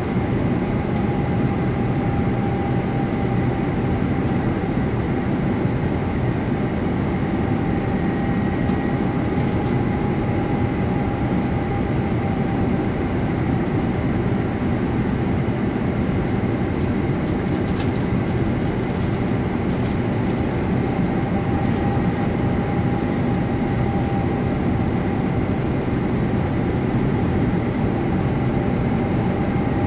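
Steady cabin roar of a Boeing 787-9 airliner on final approach: engine and airflow noise heard from inside the cabin, with a faint steady whine running through it.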